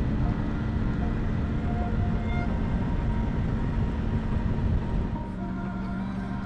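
Triumph Tiger 900 Rally's three-cylinder engine running under way, mixed with wind and road rumble. About five seconds in, the sound drops a little and settles into a steadier engine note.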